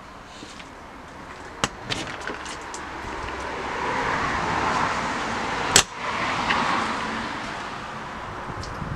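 Latch clicks and a sharp knock from a motorhome's exterior storage bay door being worked, over a rushing noise that swells in the middle.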